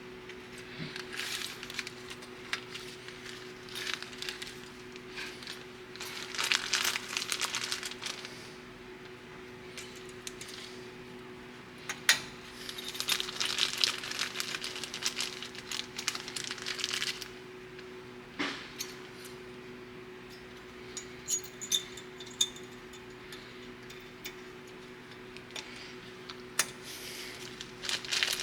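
Clinks and scraping of metal tools and brake parts being handled, with a few stretches of rasping, hissing scraping, over a steady low hum.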